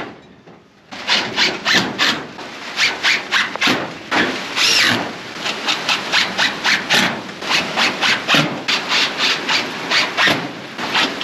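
A hand tool working at a rusty sheet-metal cage panel: a sharp knock, then a steady run of rasping, scraping strokes, about two a second, with a brief squeal among them.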